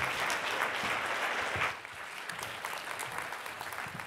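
Audience applauding, loudest for the first couple of seconds and then dying down.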